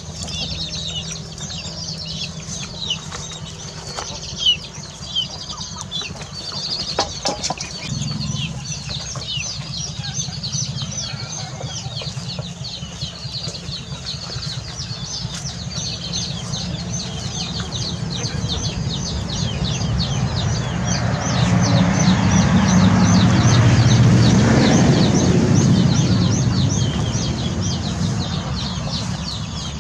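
Rural outdoor ambience with chickens clucking and high, rapid chirping, which settles into an even series of about three chirps a second in the second half. A broad rush of noise swells and fades again in the latter half.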